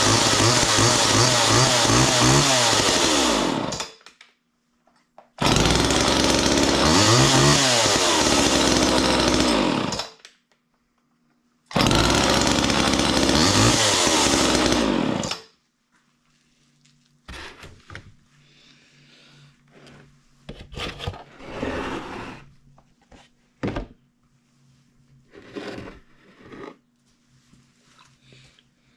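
Homelite two-stroke chainsaw revving hard with no load, in three runs of several seconds each with short gaps between them; in each run the engine pitch dips and climbs again as the throttle is worked. The saw stops about fifteen seconds in, leaving only scattered knocks and clatter.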